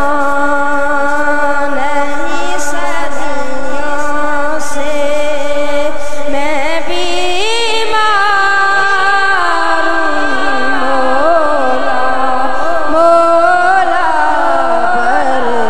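A boy singing an Islamic devotional recitation solo into a microphone, unaccompanied, in long held notes with wavering ornaments; about halfway through the melody climbs higher.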